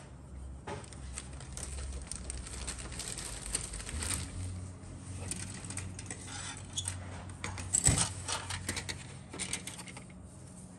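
Grey injection-moulded plastic model kit parts and sprues being handled and set down: a run of light clicks and clatter, with one louder knock about eight seconds in.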